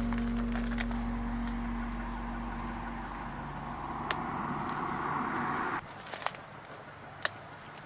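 Crickets chirring in one steady, unbroken high tone. The tail of background music fades out in the first three seconds. A rushing noise swells from about four seconds in and stops abruptly near six seconds, with a few sharp clicks.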